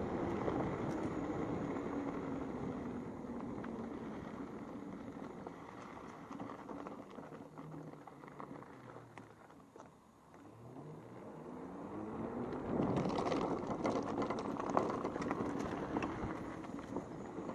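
Electric motor of a 3000 W enduro e-bike whining while riding, the whine falling in pitch as the bike slows and nearly dying away about ten seconds in, then rising again as it speeds up. Wind noise and tyre noise grow with the speed, with short knocks and rattles over rough ground near the end.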